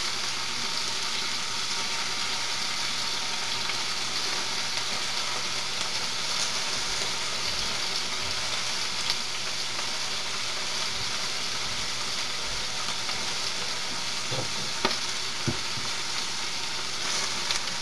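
Marinated chicken strips frying in oil in a stainless-steel skillet at a little below medium heat, a steady even sizzle. A couple of light clicks about three-quarters of the way through.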